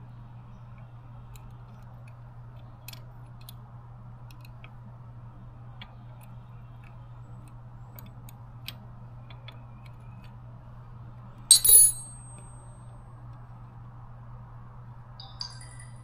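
Small steel open-end wrench on the gear-shift linkage locknuts: faint metallic ticks, then one loud clink with a short high ring about twelve seconds in, and a lighter clink near the end, over a steady low hum.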